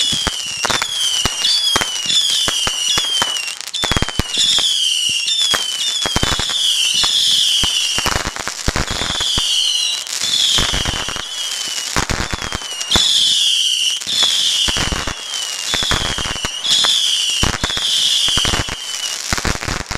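A whistling firework going off: short falling whistles, about one a second, repeated over a steady crackle of small pops.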